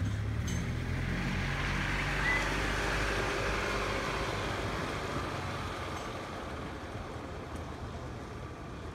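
Steady rushing noise of rain and wind, swelling about two seconds in and then slowly easing, with a low droning hum in the first few seconds that fades away.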